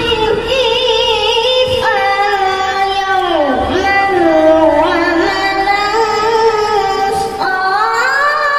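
A boy reciting the Qur'an in melodic tilawah style in a high voice, holding long notes with quavering ornaments and sliding pitch, amplified through a PA loudspeaker.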